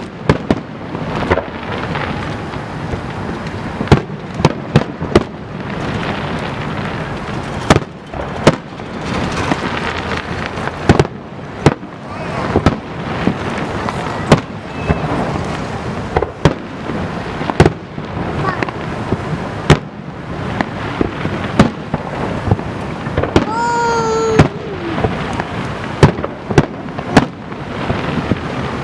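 Aerial fireworks bursting in a rapid, irregular series of sharp bangs over a steady background hum of crowd noise. About three-quarters of the way through, one voice gives a short call that falls slightly in pitch.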